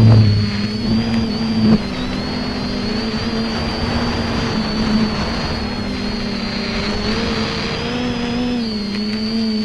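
X550AIOP quadcopter's electric motors and propellers running, heard from on board, a steady hum whose pitch drifts up and down as the throttle changes; a short knock about two seconds in.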